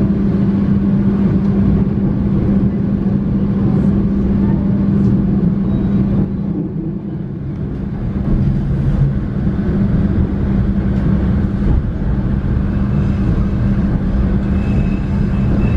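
Passenger train running, heard from inside the carriage: a steady rumble of the wheels on the track with a constant low hum. The rumble eases briefly partway through, and a faint thin high tone comes in near the end.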